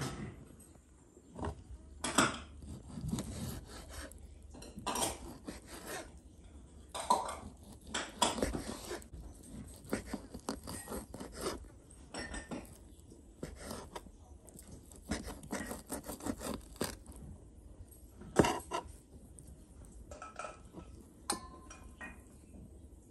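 Kitchen knife cutting boiled meat into chunks on a plastic cutting board: irregular knocks of the blade on the board, mixed with short scrapes.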